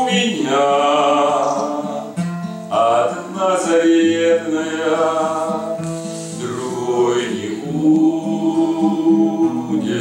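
A man singing a slow song while strumming an acoustic guitar.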